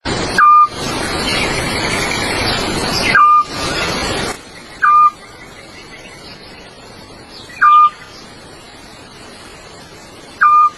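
A bird repeats the same short whistled call five times at uneven gaps; each call drops quickly and then holds a brief note. A loud steady rushing noise runs under the first four seconds.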